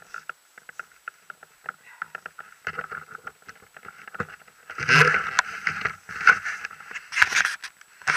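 Close handling noise from a paramotor pilot taking off his harness and moving about on dry grass: irregular clicks, scuffs and rustles right at the microphone, with louder rustling bursts about five seconds in and again near the end. The paramotor engine is not running.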